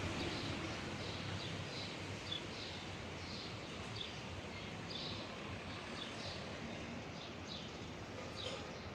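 Small birds chirping, short high calls repeated about once or twice a second, over a steady outdoor hiss. A low hum fades away in the first few seconds.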